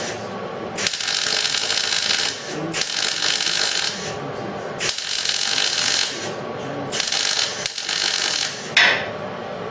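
MIG welder stitch-welding a galvanized steel repair panel: about six bursts of crackling hiss, each lasting a second or so, stopping and starting sharply between welds.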